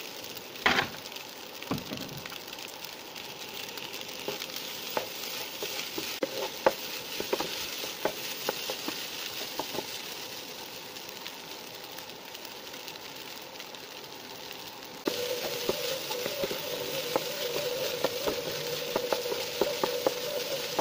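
Fried rice with diced tomato sizzling in a non-stick frying pan while a wooden spatula stirs it, with frequent scraping taps of the spatula and a knock under a second in. About fifteen seconds in, the sizzling turns louder and a steady hum joins it.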